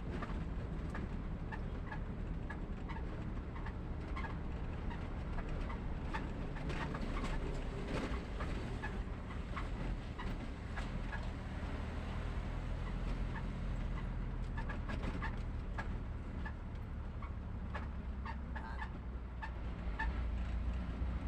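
Faint, steady low rumble of a car on the move, with short high chirps scattered irregularly throughout.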